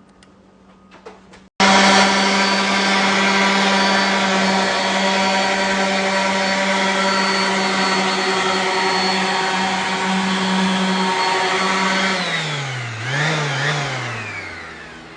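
Electric power sander switched on with a sudden start, its motor running at a steady high-speed hum. Near the end it winds down: the pitch falls, rises briefly, then falls away as the motor coasts to a stop.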